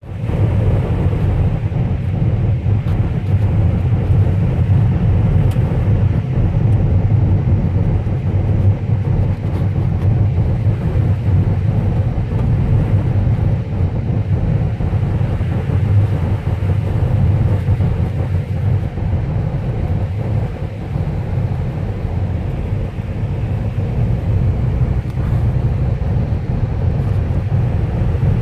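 Steady low rumble of a car driving along a wet road, engine and tyre noise heard from inside the cabin.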